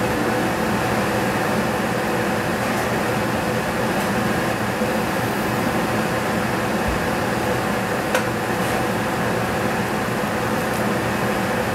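Steady whirring hum of a fan or motor running, with a light click about eight seconds in.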